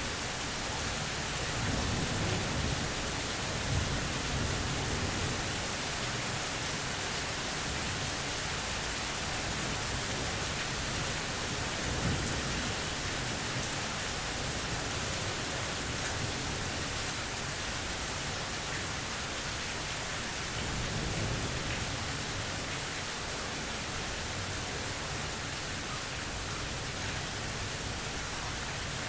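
Steady rain from a mild thunderstorm, an even hiss, with low rumbles of thunder swelling up three times: a few seconds in, near the middle and about two-thirds through.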